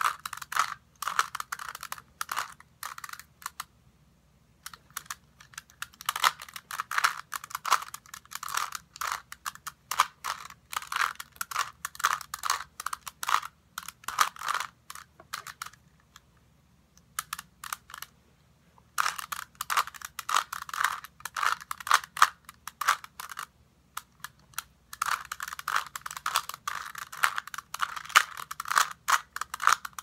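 Rubik's cube being turned rapidly by hand: quick runs of plastic clicking and clacking as the layers twist, with a few pauses of one to three seconds.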